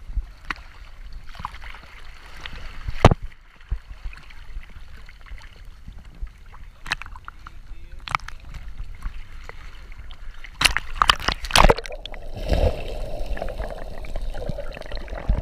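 Choppy sea water slapping and sloshing against a waterproof action-camera housing at the surface, with several sharp splashes. Near the end the sound turns to a muffled underwater rush of bubbles as a scuba diver plunges in beside the camera.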